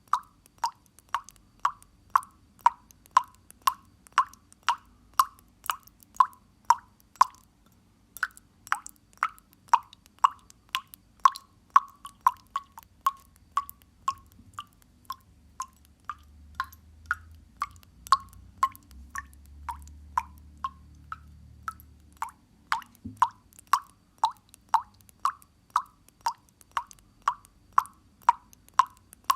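Water dripping steadily, about two drops a second, each a short clear plop at the same pitch. The drips pause briefly about seven seconds in and grow fainter through the middle before coming back louder.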